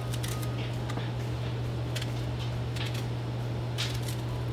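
A few faint, short clicks as strawberries are sliced by hand with a small kitchen knife, over a steady low hum.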